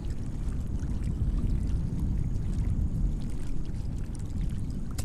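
Water lapping and washing against the hull of a small fishing skiff, a steady low rumbling wash.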